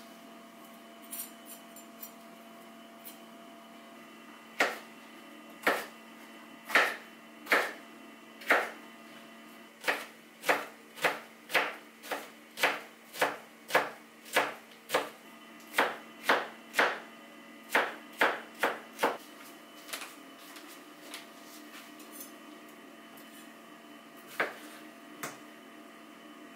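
Chef's knife dicing red bell pepper on a bamboo cutting board, with sharp knocks of the blade on the board. They come about once a second at first, then in a quicker run of about two a second, then only a few scattered strokes near the end.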